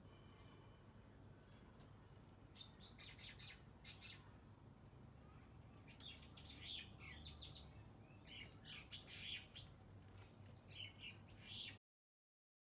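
Faint birds chirping in short clusters of quick notes over a low steady hum.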